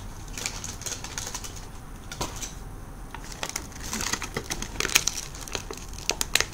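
Crinkling and rustling of packaging with quick sharp clicks and taps, getting busier about four seconds in.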